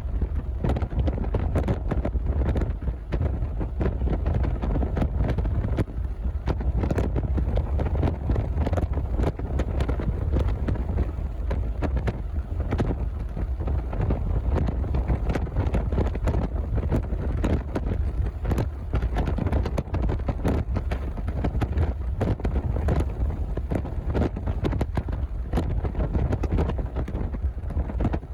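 Wind buffeting the microphone: a steady low rumble with constant crackling gusts.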